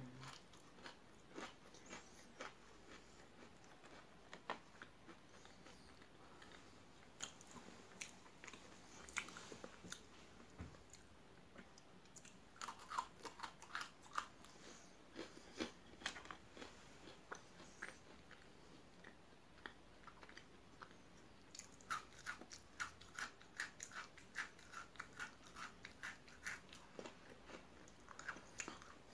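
Faint, close crunching and chewing of Pocky chocolate-coated biscuit sticks: runs of small sharp crunches and clicks come in clusters, with quieter chewing in between.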